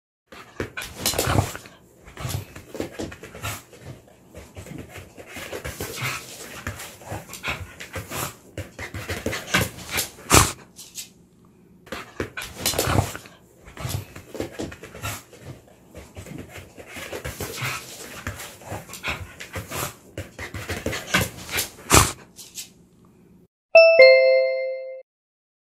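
A dog's everyday sounds close to the microphone: irregular clicks, rustles and breathing, with a few louder knocks. Near the end a two-note falling ding-dong chime sounds.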